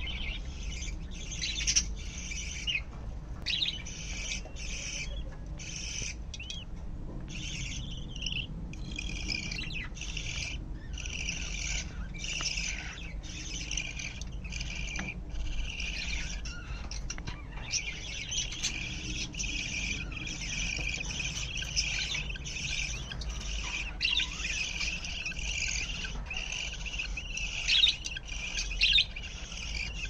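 Budgerigars chirping: a dense, high-pitched chatter of many short calls, with brief pauses in the first half and almost unbroken from about halfway on.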